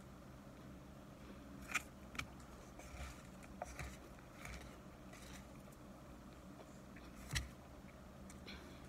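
A few faint, short scrapes and clicks, about half a dozen spread apart, the clearest near the end: a utensil scraping packed cornstarch in a clear plastic tub.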